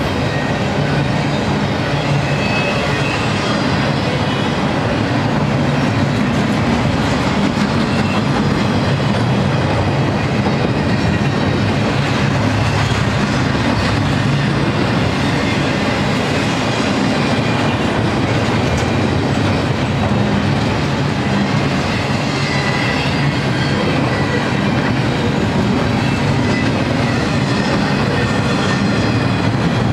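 Freight train of double-stack container well cars rolling past: a steady, loud noise of steel wheels on rail, with many repeated clicks from the wheels over the track.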